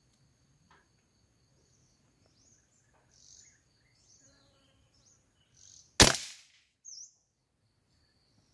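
Small birds chirping in the trees, then about six seconds in a single sharp shot from a scoped rifle, with a short ringing tail. A bird chirps once more just after the shot.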